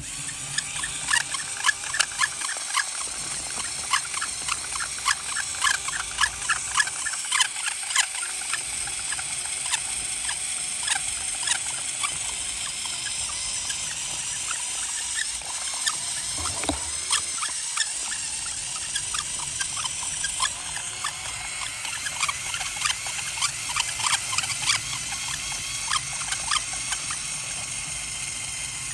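Plastic LEGO Technic gears and turntable turning under power, giving a steady run of rapid squeaks and clicks. The squeal of plastic teeth and bearing surfaces rubbing dry.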